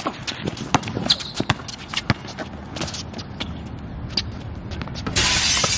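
Basketball being dribbled on an outdoor hard court: a run of sharp bounces with sneakers scuffing in between. Near the end comes a loud rush of noise.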